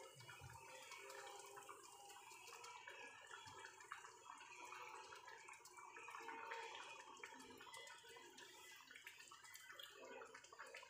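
Faint bubbling and popping of a thick rice stew simmering in a pot on the stove.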